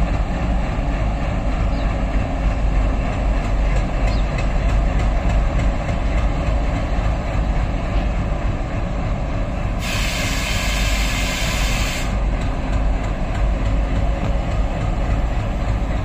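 Diesel locomotive running steadily as it moves slowly with its train, a deep engine rumble. About ten seconds in, a loud hiss breaks in for about two seconds and then stops.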